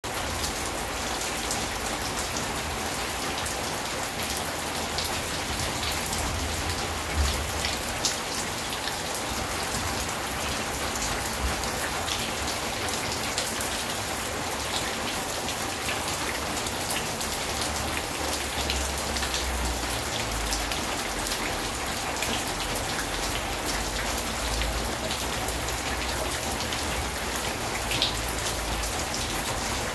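Steady rain falling on a corrugated sheet roof and running off its edge onto a wet yard, with sharp single drips standing out now and then.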